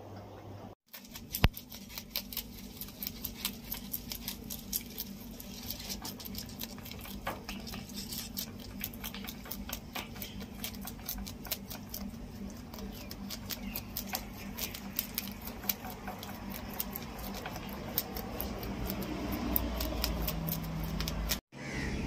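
Rabbit chewing leaves: a long run of crisp, irregular clicks, several a second, over a low steady hum.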